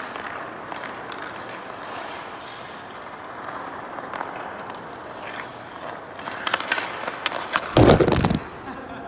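Hockey skate blades scraping and gliding on rink ice, with the stick clicking against the puck in quick taps that thicken about six to seven and a half seconds in. A loud burst of noise near the end is the loudest sound.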